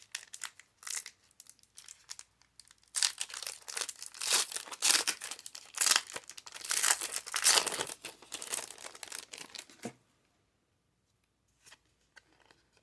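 Foil wrapper of a Pokémon trading card booster pack crinkling and being torn open by hand, a run of rustling and tearing that stops about ten seconds in, followed by a few faint clicks.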